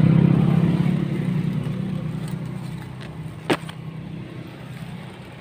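A motor vehicle's engine passing on the road, loudest at the start and fading away. There is one sharp click about three and a half seconds in.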